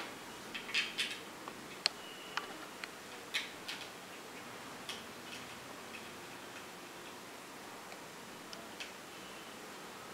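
Light plastic clicks and taps as a micro-USB cable and its connector are handled and plugged in. The clicks are irregular: several in the first few seconds, then fewer and softer.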